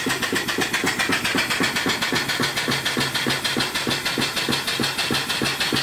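Antique horizontal steam mill engine from about 1890 running on steam that has just been turned on. It gives an even, rhythmic chuff of about six strokes a second over a steady hiss of steam.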